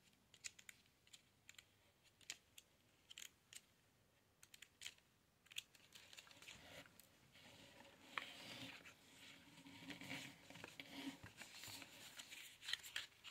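Faint paper page flips of a small tarot guidebook, scattered soft clicks at first, then denser paper and card rustling in the second half as the booklet and its box are handled.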